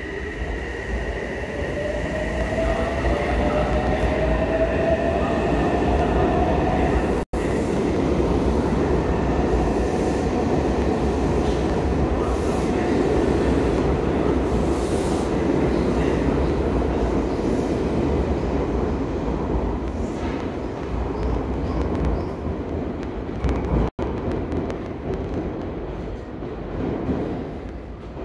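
An electric train running through an enclosed station: a steady rumble and rush, with a motor whine rising slowly in pitch over the first several seconds, easing off near the end.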